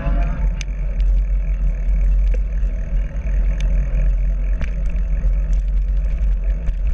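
Wind buffeting the microphone of a handlebar-mounted camera on a moving bicycle: a steady low rumble, with scattered light clicks and rattles from the bike.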